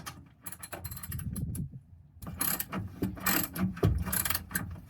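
Hand ratchet wrench clicking rapidly as a seatbelt anchor bolt is turned, in a short run of clicks and then a longer, louder run from about two seconds in.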